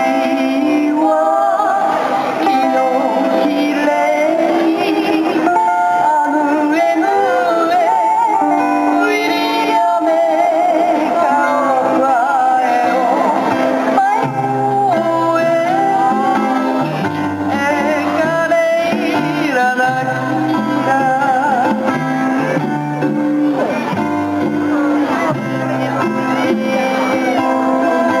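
Music with singing over plucked strings; a low bass line comes in about halfway through.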